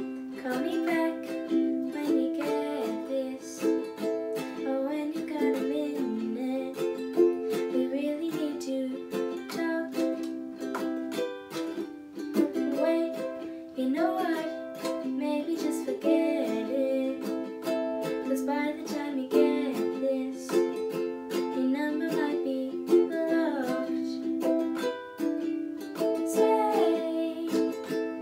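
Ukulele strummed in chords, with a young woman singing over it at times.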